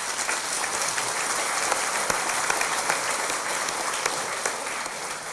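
Audience applauding: a dense, steady clatter of many hands clapping that begins to die away near the end.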